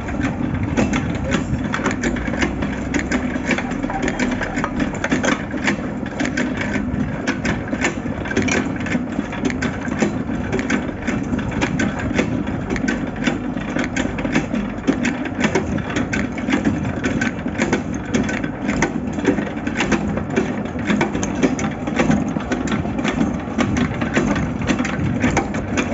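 A workshop machine running steadily, with a dense, irregular crackle of clicks over a constant hum.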